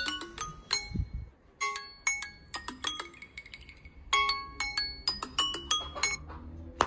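Samsung Galaxy Z Flip3 sounding its alarm tone: a melody of quick, bell-like pitched notes played in three repeated phrases, stopping about six seconds in when it is dismissed. A single sharp click follows near the end.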